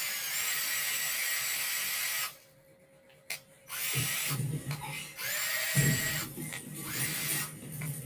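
Cordless drill fitted with a replacement 18 V DC motor, run free in several bursts on the trigger: it whines, spins up with a rising pitch, stops and starts again. It is being tested after the motor change.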